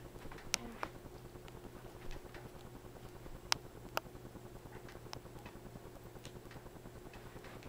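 Quiet room tone with a low steady hum and a handful of scattered sharp clicks, the loudest two about halfway through: the keys of a mobile phone being pressed to step through its menus.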